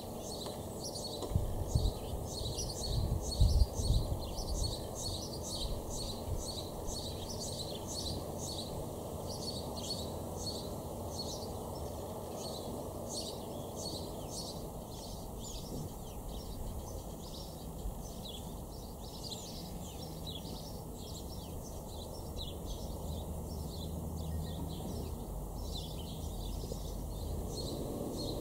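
Small songbirds chirping rapidly and continuously in high, short notes over a steady outdoor background, with a few louder low rumbles of wind about two to four seconds in.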